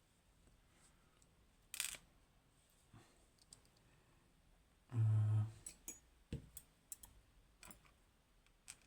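Small metal lock pins and parts clicking and tapping as they are handled and set down on a tray, in a few scattered clicks. A brief low hum about five seconds in is the loudest sound.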